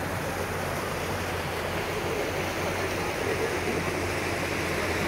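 Muddy floodwater rushing steadily through a road washout left by heavy rain, a continuous even noise of fast-flowing water.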